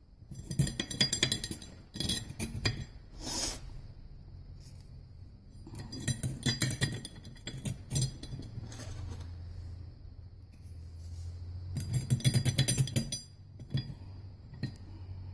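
Small steel coil springs clinking and rattling against metal as they are dropped by hand into the spring holes of a 1955 Oldsmobile Hydra-Matic front clutch hub, in several bursts of rapid clinks.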